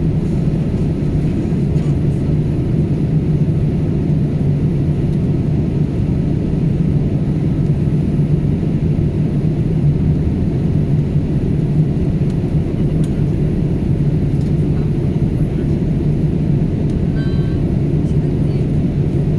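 Boeing 787-8 Dreamliner in flight, heard inside the passenger cabin: a steady, loud low rumble of engine and airflow noise.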